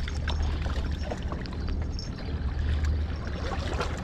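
Steady low rumble with seawater washing against rocks and a few faint clicks.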